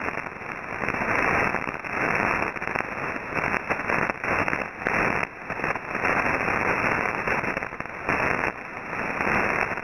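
Shortwave radio static and hiss from a receiver tuned to an empty voice channel, swelling and fading, with no voice getting through.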